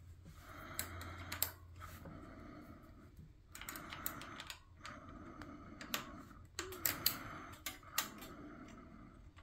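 Faint, scattered light clicks and taps, like a keyboard being typed on slowly: hands handling a bicycle's brake cable and its fittings at the front fork.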